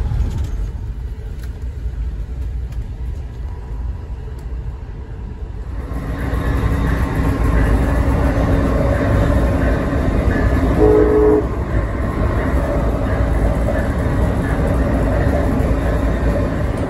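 Running noise of a moving Amtrak train heard from on board: a steady low rumble that jumps louder about six seconds in. About eleven seconds in, a short horn note of about half a second sounds from the locomotive.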